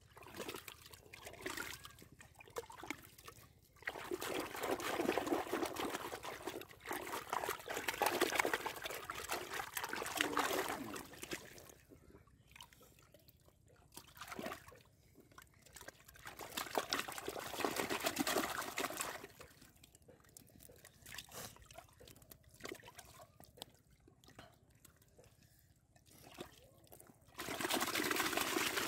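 Hands squelching and churning in wet mud and water at the bottom of a dug hole while feeling for buried fish, in several bursts a few seconds long with quieter scraping and rustling between.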